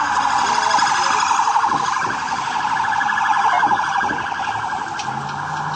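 Police siren in a fast warble, its pitch sweeping up and down several times a second. It is loudest for the first couple of seconds and fades away after about four seconds.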